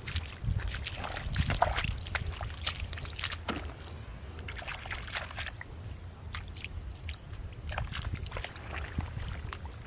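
Wet mud squelching and shallow water sloshing as bare feet wade through a waterlogged field and hands dig into a muddy hole, in many short, irregular wet clicks and splashes.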